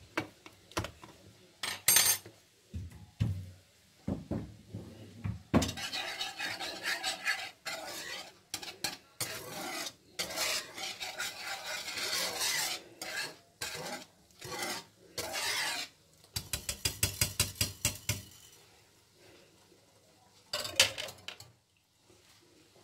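Wire balloon whisk stirring a simmering cream sauce in a frying pan, its metal tines scraping and rattling against the pan. A few sharp clinks are heard, and later comes a short run of fast, even whisk strokes.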